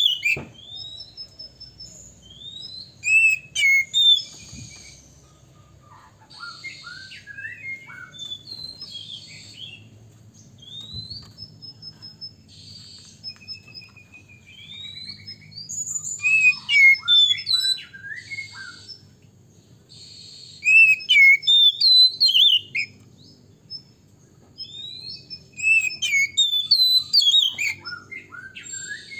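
Male oriental magpie-robin singing: varied whistled notes, rising and falling, mixed with harsh rasping notes. It sings in loud bouts, with softer, scattered phrases in between.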